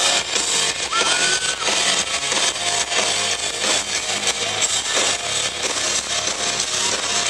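Pop-punk band playing live, loud and steady: distorted electric guitars over a driving drum beat.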